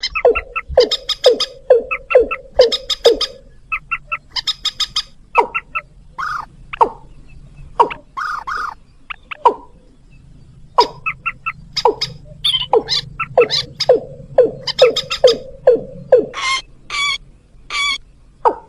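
Watercock and white-breasted waterhen calling: runs of short, sharp, repeated notes, broken up by a few longer ringing calls, as played from a bird-luring recording.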